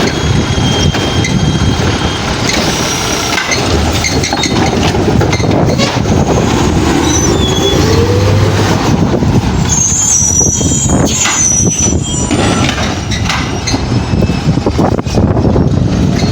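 Garbage truck running and working bins, its engine and machinery loud and steady, with a short pitch glide midway and high metallic squeals about ten seconds in. Wind buffets the microphone.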